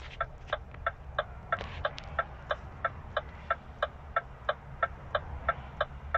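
Lorry cab's indicator flasher ticking steadily, about three ticks a second, over a low steady hum.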